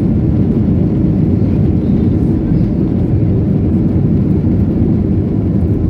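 Airliner jet engines and rushing air during the climb-out just after takeoff, heard inside the passenger cabin as a steady, loud, low rumble.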